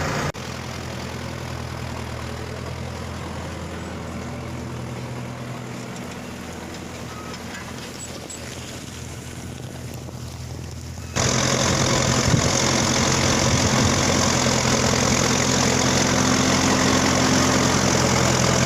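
Four-wheel-drive tractor engine running steadily at a constant speed. The sound changes abruptly twice: it drops slightly in level right at the start, and about eleven seconds in it jumps louder and brighter.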